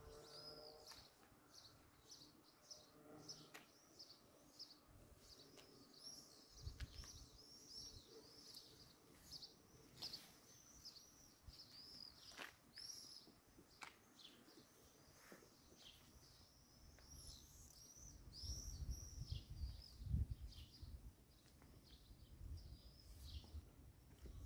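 Faint, high chirps of small birds calling over and over in short notes. A low rumble comes in briefly about seven seconds in and again from about eighteen seconds.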